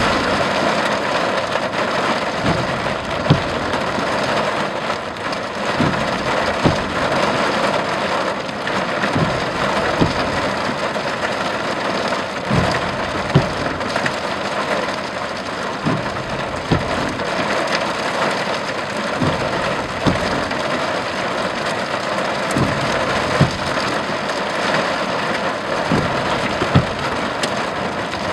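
Heavy thunderstorm rain: a dense, steady downpour with frequent sharp, louder hits scattered through it.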